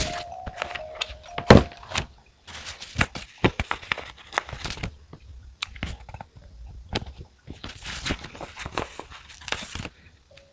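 Desk stationery handling: paper rustling and scratching in two longer stretches, with frequent sharp taps and clicks of pens and other stationery on the desk. A short, faint chiming melody sounds in the first second.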